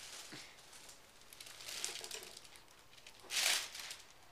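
Faint rustling and crinkling, with a short breathy hiss about three and a half seconds in.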